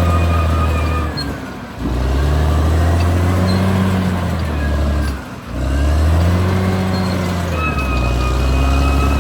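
Caterpillar D6R XL bulldozer's diesel engine working under load. Its note sags and recovers twice, about a second and a half in and about five seconds in. A high steady whine comes in near the end.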